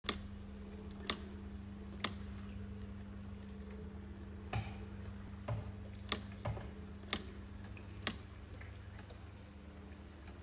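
A steady low mechanical hum with sharp ticks about once a second and a few duller knocks in between. This fits a small motor and ticking mechanism driving the figures of a nativity display.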